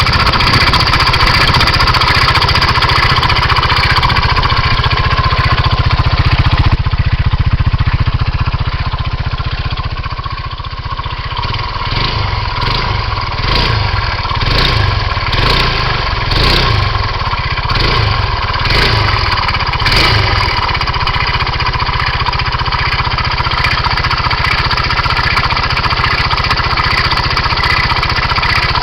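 2007 Kymco Agility 125 scooter's single-cylinder four-stroke engine idling. From about twelve to twenty seconds in, a surging noise comes and goes roughly once a second: the cycling noise the owner is trying to trace, cause not yet known.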